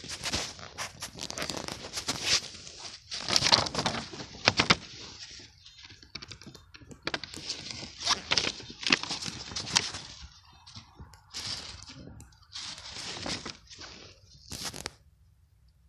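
Irregular bursts of rustling and crackling from dry leaves, grass and soil being disturbed as finds and tools are handled on the forest floor, with a few light knocks. It dies away just before the end.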